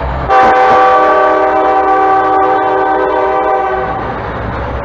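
Locomotive multi-chime air horn sounding one long chord, starting suddenly and held for about three and a half seconds before fading: a horn salute for the railfan. The rumble of the passing train runs underneath.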